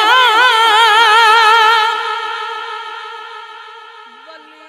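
A naat reciter's amplified voice holding one long, high sung note with a wide, even vibrato, which fades away over the last two seconds; near the end a quieter, lower sung line begins.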